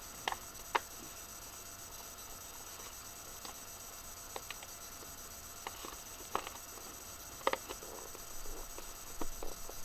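Scissors snipping and clicking at cardboard and plastic toy packaging: a dozen or so short, sharp clicks at irregular intervals, the loudest just under a second in and again about seven and a half seconds in.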